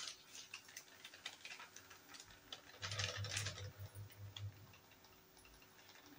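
Hot melted ghee crackling faintly in a frying pan around freshly added wheat flour, a scatter of small irregular pops that grows denser about three seconds in.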